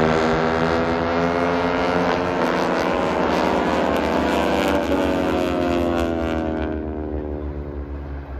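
A formation of propeller-driven aerobatic airplanes passing overhead with a loud, droning engine sound whose pitch slowly drops as they go by. The sound fades near the end as they move away.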